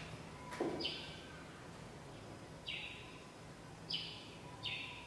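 A marker squeaking on chart paper in four short strokes spread over a few seconds, with a light knock against the board near the start, as a mistake on the chart is written over.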